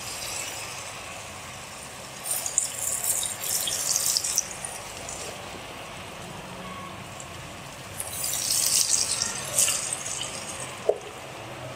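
Potato fries coated in cornflour and spices deep-frying in hot oil, freshly dropped in: a steady sizzle, crackling louder about two to four seconds in and again around eight to ten seconds in.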